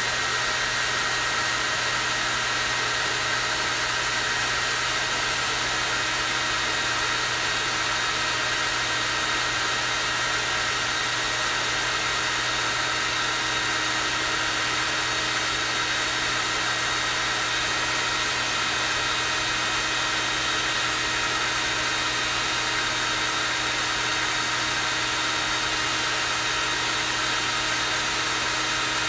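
Hair dryer running steadily on its strong-air setting: a constant, high-pitched rush of air over a low, even motor hum, with no change in speed.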